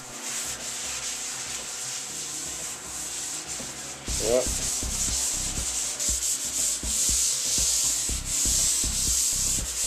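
Hand scrubbing pad scouring the porcelain surface of a bathtub, a continuous scratchy rubbing that gets louder about four seconds in, with irregular knocks and a brief squeak. It is the cleaning stage before refinishing, scrubbing off stone and calcium buildup.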